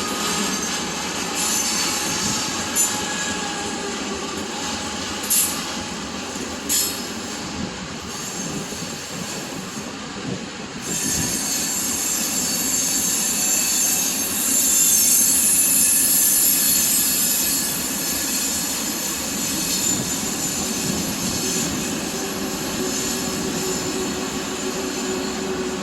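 Norfolk Southern freight train cars rolling past, steel wheels squealing against the rail. Three sharp clacks come in the first seven seconds, and the squeal is loudest a little past the middle.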